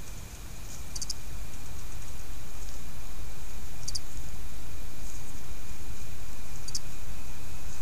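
Outdoor ambience through a trail camera microphone: a steady low rumble, a faint steady high tone, and three short high-pitched chirps about three seconds apart.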